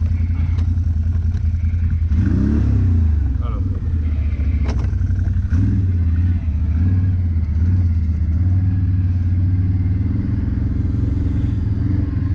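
ATV engine running steadily, revving up and easing off about two seconds in, with a sharp knock a little before five seconds.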